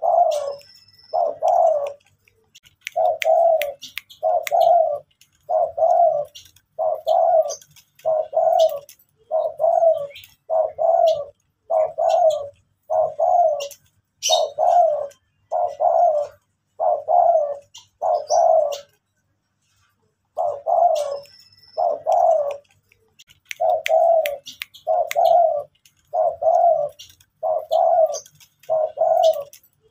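Spotted dove cooing: a long run of short, low coos, about one a second and often paired, with a pause of about two seconds near two-thirds of the way through.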